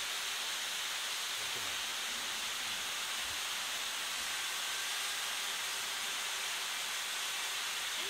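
Steady rushing hiss of a waterfall, even and unbroken, with no clear beat or rise and fall.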